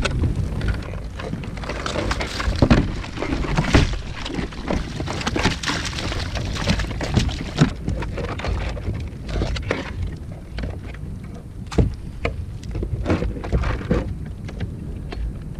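Irregular knocks and clatter from a crab pot and crabs being handled aboard a kayak, over a steady low rumble of wind on the microphone. The knocks come thickest in the first ten seconds and thin out after.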